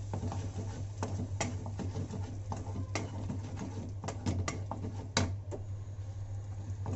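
Wooden spoon stirring thick masala gravy with cream in a steel pan, knocking and scraping irregularly against the pan, over a steady low hum.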